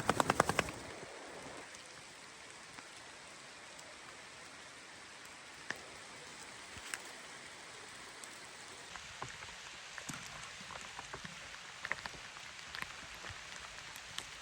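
Steady rain falling on a teepee shelter: a soft, even hiss with scattered drops ticking on the fabric. It opens with a brief, fast rattle.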